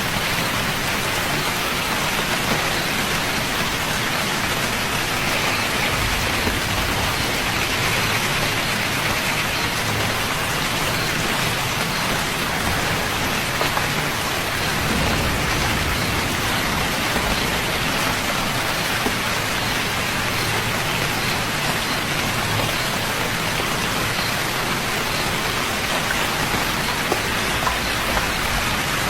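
Steady rain falling, an even dense hiss of drops on a surface.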